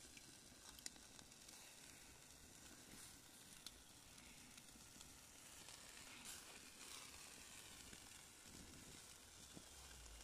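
Sausages and zucchini slices sizzling faintly in wire grill baskets over a charcoal mangal, a steady soft hiss with a couple of small pops from the coals.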